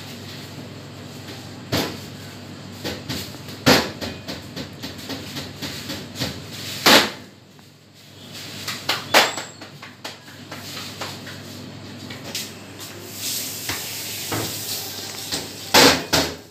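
Hand-made roti dough being slapped and patted between the palms and pressed on a cloth pad onto the tandoor wall: a series of sharp slaps and thumps, five of them much louder, with small clicks between, over a steady background hum.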